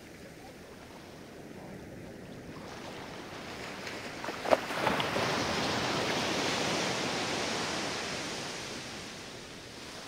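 Ocean wave breaking on the shore: the surf builds, breaks with a sharp crash about halfway through, then washes up the beach in a steady rush that fades near the end.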